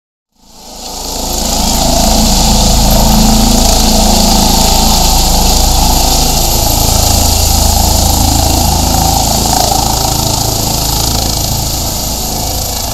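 Eurocopter EC 145 air-rescue helicopter running close by, its rotor and turbines making a loud, steady noise with a thin high whine on top. The sound rises in over about a second, a little after the start, and eases slightly near the end.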